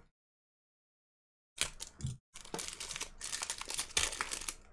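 A foil wrapper on a Topps Series One baseball card hobby pack crinkling and tearing as it is pulled open by hand. It starts about a second and a half in, a dense run of crackles.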